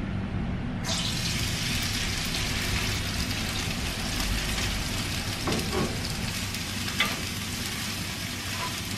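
Chopped green onion dropped into hot sesame oil in a frying pan: a sudden sizzle starts about a second in and runs on steadily, with a wooden spoon stirring and a couple of light knocks against the pan.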